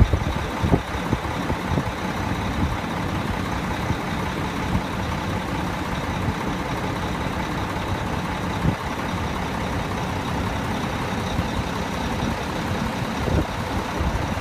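Heavy truck's diesel engine idling steadily, a low even rumble.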